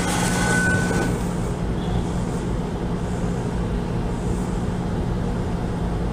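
Steady low hum over an even background noise, with a steady high tone that stops about a second in.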